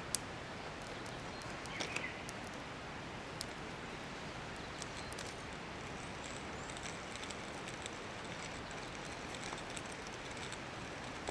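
Wood fire crackling in a fire pit: scattered small pops and snaps, a sharper snap just after the start and a few together about two seconds in, over a steady outdoor hiss.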